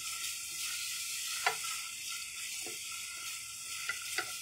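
Finely chopped onions sizzling steadily in hot oil in a metal pot, being fried toward golden brown. A slotted wooden spatula stirring them knocks and scrapes against the pot a few times.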